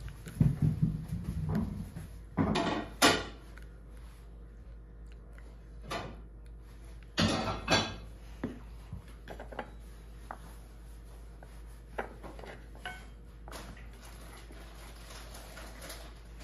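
Kitchen handling sounds on a wooden cutting board: a plastic cup and a silicone ice mold being moved and set down. There are two or three short scraping bursts, the first about two and a half seconds in and another about seven seconds in, with scattered light knocks between them.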